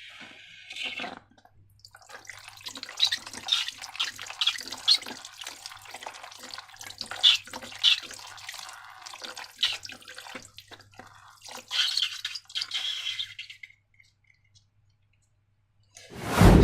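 Wet, sticky slime squelching and dripping, a busy run of small squishes and clicks. A brief loud sound begins near the end.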